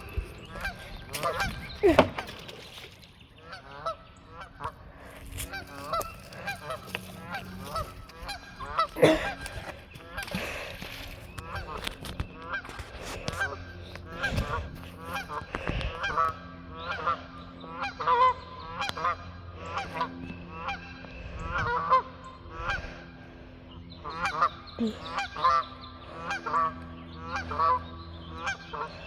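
A flock of geese honking, many short calls overlapping and repeating without a break.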